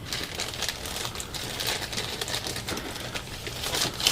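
Trading cards being handled and flipped through, a rapid run of small clicks and rustles of card stock.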